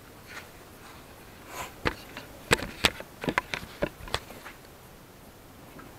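Handling noises: a quick run of sharp clicks and knocks over about two seconds around the middle, with quiet before and after.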